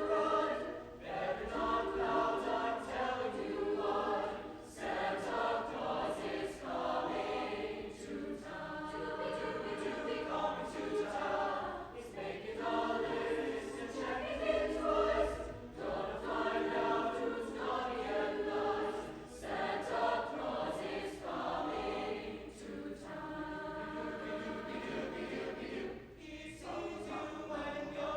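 A high school choir singing in sustained phrases, with short breaks between phrases every few seconds.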